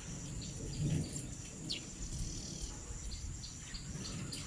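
Insects trilling steadily at a high pitch, with regular pulsed chirps and a few short bird chirps, over a low background rumble.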